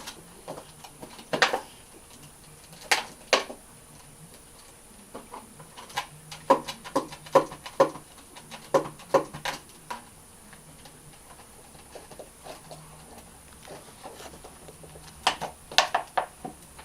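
Cat licking a laptop: short wet clicks and rubs of its tongue on the computer, a few louder ones near the start and end, and a quicker run of licks, about three a second, in the middle.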